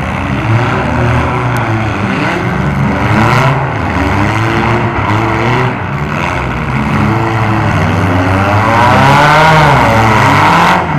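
Engines of several demolition derby cars revving hard and overlapping, their pitch rising and falling as they accelerate and back off, with the loudest rev near the end.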